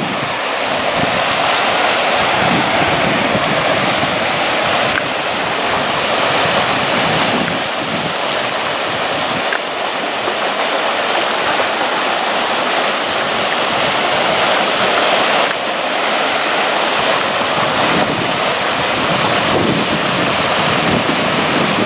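Muddy floodwater rushing down a drainage channel that is running full after a flash flood, a loud, steady rushing noise.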